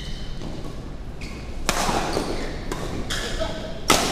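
Badminton doubles rally: rackets striking the shuttlecock and players' shoes squeaking and thudding on the court, with sharp hits about halfway through and a loudest one near the end.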